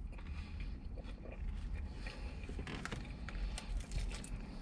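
Faint scattered clicks and crackles of handling fried crab-stuffed shrimp rangoon, with a crunchy bite into one in the second half, over a low steady rumble.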